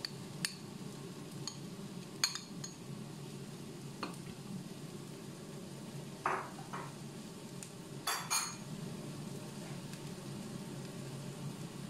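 Metal spoon clinking against a glass bowl and a ceramic plate as cooked rice is scooped and served: a handful of sharp clinks spread out, with a duller scrape about six seconds in and two clinks close together about eight seconds in, over a steady low hum.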